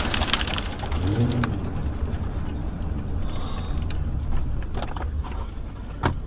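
Car road and engine noise heard from inside the cabin as the car slows down, a steady low rumble with a few light clicks and a sharp knock near the end.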